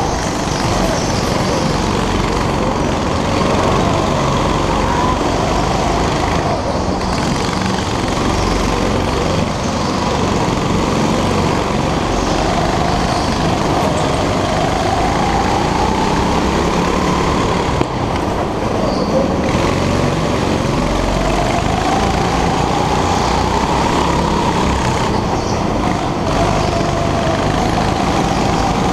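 Go-kart engine heard onboard, revving up on the straights and dropping back through the corners in a repeated slow rise and fall of pitch, over a steady rush of wind and track noise.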